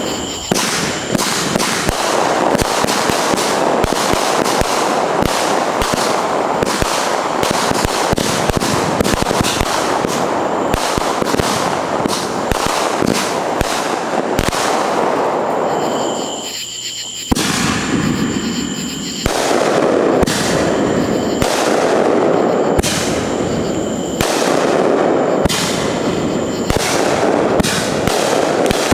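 Fireworks going off: dense crackling and popping packed with many sharp bangs, easing briefly a little past halfway before building again.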